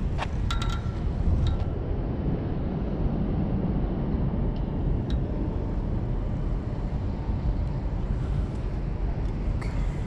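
Steady low rumbling outdoor noise, with a few light clicks of fishing tackle being handled in the first second or two and once near the end.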